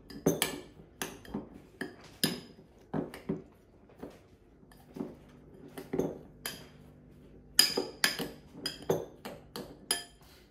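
Metal utensil clinking and knocking against a glass bowl while mashing and mixing potato: irregular taps, some with a short glassy ring, loudest near the end.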